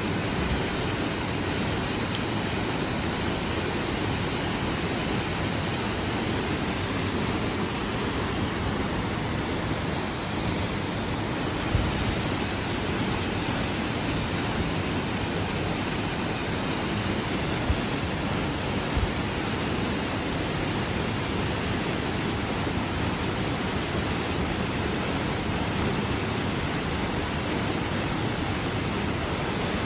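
Waterfall rushing steadily, a dense even roar of falling water, with a few brief low thumps in the middle.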